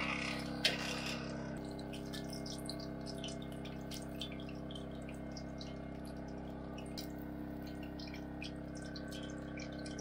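Beer-battered yellowtail fillets deep-frying in hot oil in a wok, sizzling with many scattered crackles and pops. The sizzle is loudest in the first second or so, with a sharp click about half a second in.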